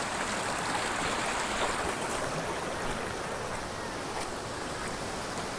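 Steady rush of running water, like a stream or runoff flowing.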